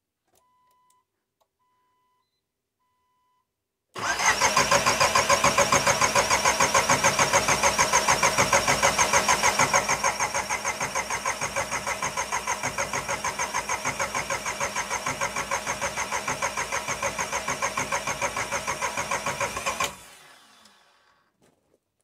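Three faint short beeps, then a VW 1.9 TDI (ALH) turbo-diesel being cranked on its starter for about sixteen seconds: a fast, even pulsing that drops a little in level partway through, then stops without the engine catching. It is being cranked with the injector lines cracked open to bleed air out after running the fuel system dry.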